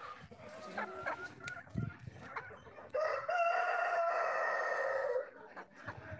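A Light Sussex rooster crows once, one long call of about two seconds starting about three seconds in. Before it, hens in the flock cluck in short scattered calls.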